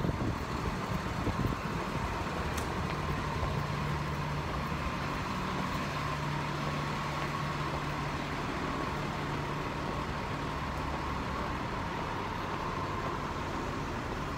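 Street traffic noise: a steady wash of road noise, with a low, even engine hum from a nearby motor vehicle that comes in a few seconds in and fades near the end.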